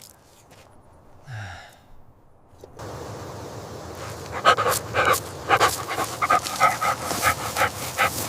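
A dog panting rhythmically, about two breaths a second, starting about four seconds in over a steady background hiss. A brief low, falling sound comes about a second in.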